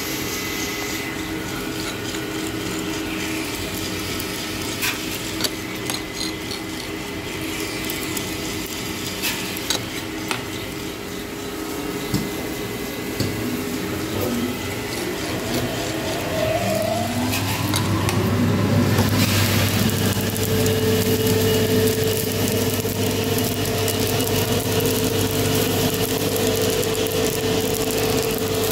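Drum coffee roaster running with a steady machine hum and scattered clicks. About two-thirds of the way through, a motor spins up with a rising whine, and a louder steady rush of noise follows, fitting roasted coffee beans being dumped from the drum into the cooling tray and churned by its stirring arms.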